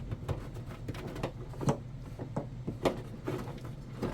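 Scattered light clicks and knocks of wires and bullet connectors being handled and plugged together on a workbench, over a steady low hum.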